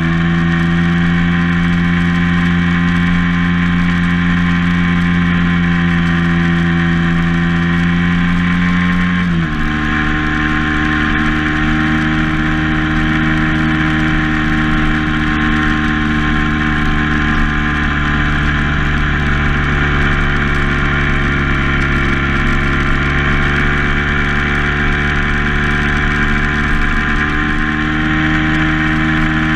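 Vehicle engine running steadily under way, its pitch dropping sharply at a gear change about nine seconds in, then holding steady.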